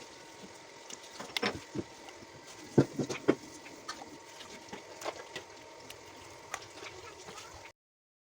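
Scattered clicks and knocks of kitchen work over a steady hiss, with a few louder knocks about three seconds in. The sound cuts off abruptly near the end.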